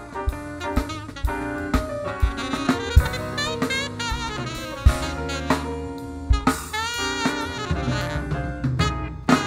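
A live band playing an instrumental blues intro: a saxophone carries the melody over drum kit, bass guitar and keyboard, with a steady beat.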